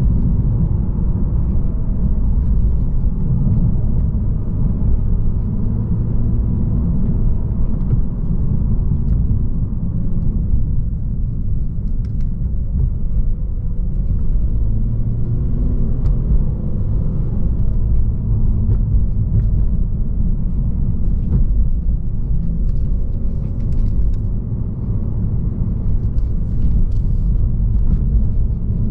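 A 2022 Lexus RC350 F Sport driving at low speed on a narrow winding road: a steady low rumble of the car on the road, with its 3.5-litre V6 engine note rising and falling slightly.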